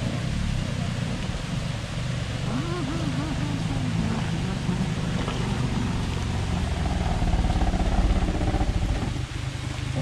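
Maruti Suzuki Omni van's small three-cylinder petrol engine pulling under load as the van climbs a rocky, muddy track. It gets louder about three-quarters of the way through, then eases off.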